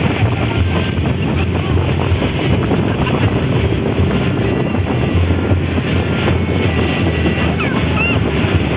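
Motorboat under way: its engine runs steadily beneath wind buffeting the microphone and the rush of water along the hull.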